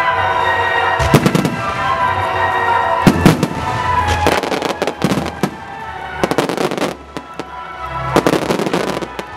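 Aerial firework shells bursting in an irregular run of sharp booms and bangs, some in quick pairs, over steady background music.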